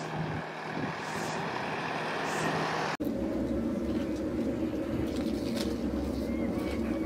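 Road traffic noise from a passing vehicle. About three seconds in it cuts off abruptly and gives way to a steady low engine hum.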